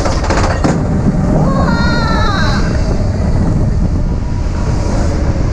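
Expedition Everest roller coaster train running along its track, with a heavy low rumble and wind buffeting the microphone. About two seconds in, a short rising voice call from a rider cuts through.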